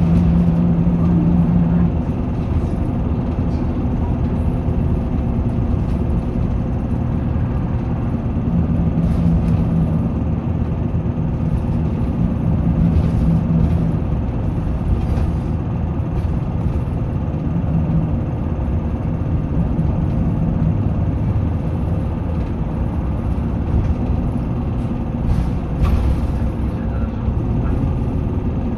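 Running noise heard inside a 2020 Isuzu Erga city bus under way: a steady diesel engine drone and road rumble, with an engine tone that comes and goes. A few short knocks or rattles are heard along the way.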